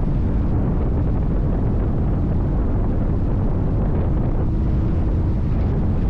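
Heavy wind buffeting on the microphone over a NITRA 22 V8 race boat running at speed, a steady low rumble.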